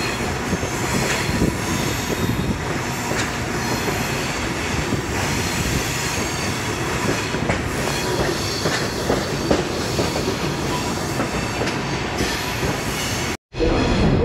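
Passenger train rolling through a canyon, heard from an open car: a steady rumble and rattle of the wheels on the rails with occasional clacks and a thin wheel squeal. A very short silent gap comes just before the end.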